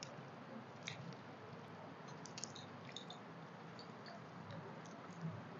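Faint squishing and chewing of people eating rice and curry with their fingers, with a few small clicks scattered through.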